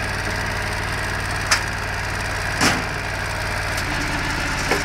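Small engine running steadily, driving the hydraulics of a home-built firewood processor, its note shifting about four seconds in. A sharp wooden click about a second and a half in and a louder thud a second later, as a log comes into the splitter chute.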